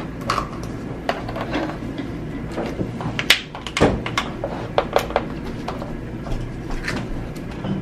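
Stretchy slime being pressed and poked with fingers, giving irregular sticky clicks and pops. A steady low hum runs underneath.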